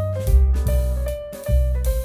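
Background music: an instrumental track with a melody in held notes over a strong, pulsing bass and drums.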